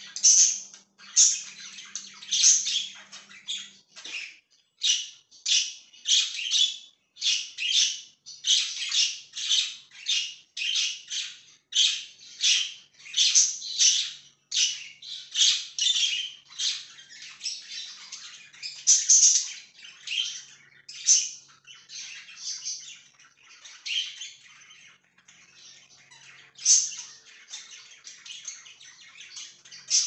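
A flock of budgerigars chirping and chattering, short squawky calls following one another about twice a second, busiest in the middle and sparser near the end.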